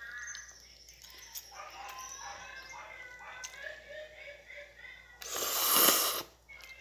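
Instant noodles slurped into the mouth in one long, loud suck lasting about a second, near the end.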